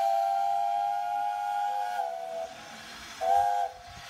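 Steam whistle sounding a chord of several steady notes over a hiss of steam: one long blast of about two and a half seconds, then a short blast near the end.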